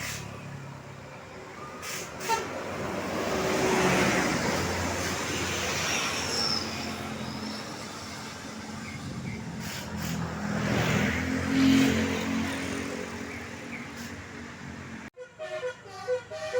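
Buses passing close by on a road, their engine and road noise swelling and fading twice, first around four seconds in and again around eleven to twelve seconds in. After a sudden cut near the end, a telolet bus horn starts playing short musical notes.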